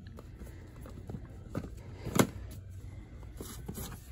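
Cardboard jigsaw puzzle boxes being handled and pulled from a store shelf: soft scuffs and light knocks, the sharpest knock about two seconds in, over a low steady hum.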